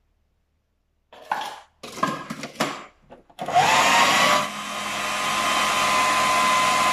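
Plastic clicking and clattering as the food processor's lid and feed-tube pusher are fitted. About halfway through, the motor starts with a rising whine and runs steadily, mixing the butter, sugar, egg and vanilla cake batter.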